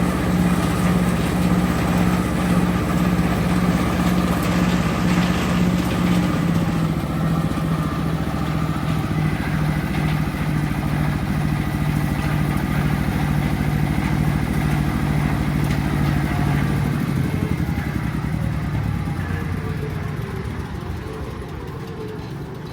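Jiangfa 30 hp diesel engine running steadily, driving a corn sheller. Its pitch drops a little about six seconds in, and near the end it slows and fades as the engine winds down.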